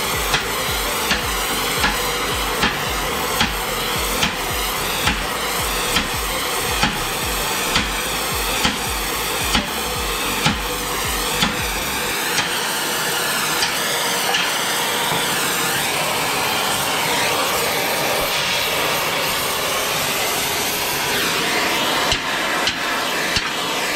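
A hammer tapping the steel bar of an anvil stand about once a second while the bar is heated with a gas torch, over the torch's steady hiss. The taps stop about halfway through and come back as a few quicker taps near the end.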